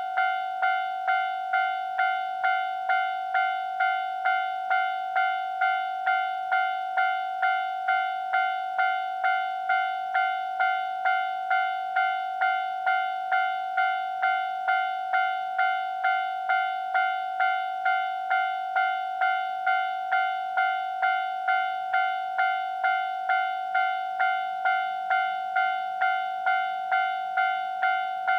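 Japanese railway level-crossing warning alarm ringing its repeated clanging bell tone, about one and a half strikes a second, signalling an approaching train.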